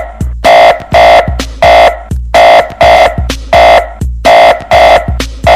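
Electronic sound-system contest track: loud, short, buzzing horn-like synth stabs repeat in quick groups over a kick drum.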